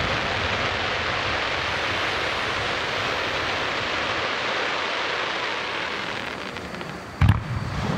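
Fireworks display: a dense, steady hiss and crackle of bursting shells that fades after about six seconds, followed a little past seven seconds by one loud, deep boom of a shell going off.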